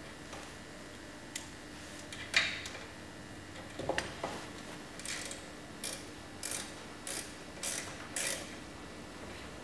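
Socket ratchet with a 10 mm socket tightening the engine's sump plug: a few clicks and a knock, then six short ratchet strokes about two-thirds of a second apart.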